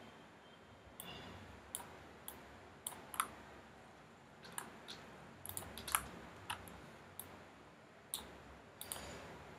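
Computer mouse buttons and keyboard keys clicking irregularly, about fifteen sharp clicks, some in quick pairs and small clusters.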